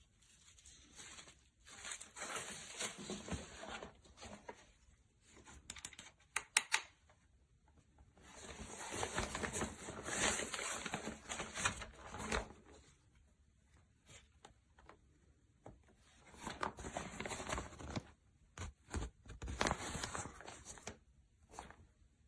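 Fabric softbox being handled: bursts of rustling and ripping as its Velcro strips are pulled apart and pressed together, with a few sharp clicks about six to seven seconds in.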